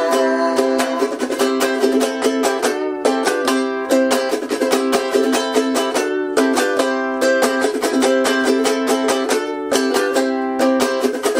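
A G-Labo GAZZ Model ukulele strummed fast and hard in a rock riff over the chords Am, D, G7 and C, with rapid choppy cutting strokes.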